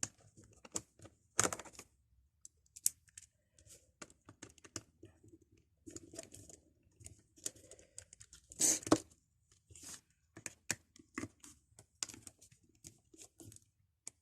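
Precision screwdriver unscrewing small screws from a Nokia 2730 phone's plastic housing: scattered light clicks and scrapes of the tool and the handled phone, with a louder knock about a second and a half in and another about nine seconds in.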